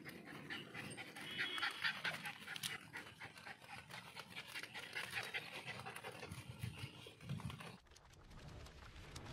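Guinea pigs and rabbits munching and rustling fresh leaves: a quick, dense run of small crunching clicks, with a few short high-pitched sounds about one to two seconds in. The sound changes abruptly near the end.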